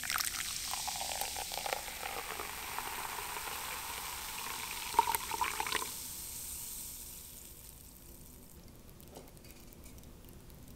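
Carbonated cherry blossom soda poured from a can into a glass measuring jug: a steady pouring stream, with a few louder glugs and splashes about five seconds in as the can empties. The stream then stops and the foam fizzes, fading away.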